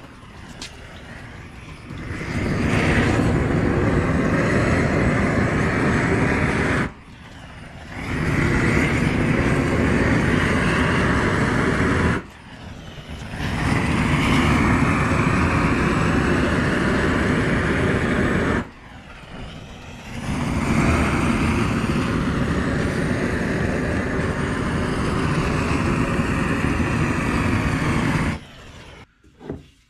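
Propane weed-burner torch, fed by hose from a propane tank, blasting its flame to scorch a wooden axe handle. It runs in four long bursts of several seconds each, every burst cutting off abruptly before the next begins.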